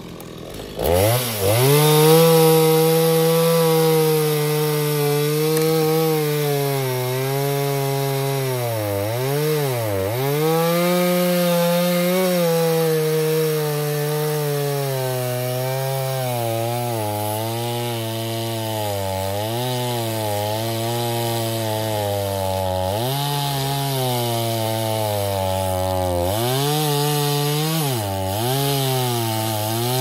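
Two-stroke gas chainsaw pull-started about a second in, then running at high revs and cutting through pine logs, its engine pitch dipping again and again as the chain bites into the wood under load.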